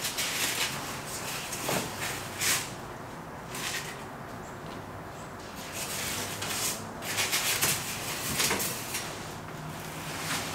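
Cardboard box and packing sheets scraping and rustling in repeated bursts as an upholstered headboard is worked loose and lifted up out of its box.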